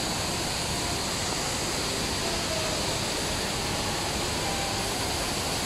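Steady, even rush of the Rain Vortex, Jewel Changi's tall indoor waterfall, pouring down into its basin.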